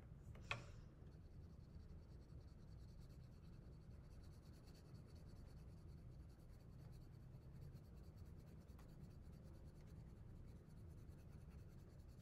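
Faint scratching of coloring strokes on a paper template, with a single short click about half a second in.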